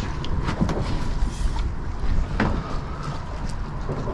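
Wind buffeting the microphone in a heavy, uneven low rumble, with scattered short clicks and knocks.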